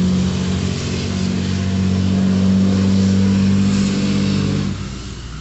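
A motor vehicle on a road passing close by, its engine a steady low drone that fades away near the end.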